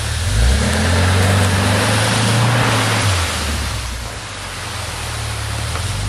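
UAZ Hunter engine revving up under load as it tries to push through a deep pile of loose leaves, then easing back to a lower note about three seconds in. A rushing noise rises and falls with the revs.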